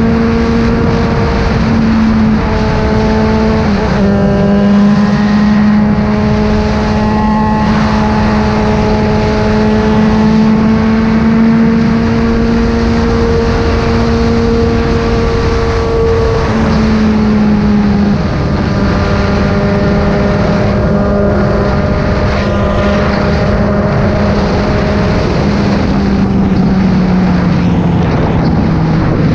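Yamaha XJ6's 600 cc inline-four engine running at steady high revs while riding at speed, with wind rushing past. The engine note shifts in pitch a few times and falls steadily over the last few seconds as the bike slows down.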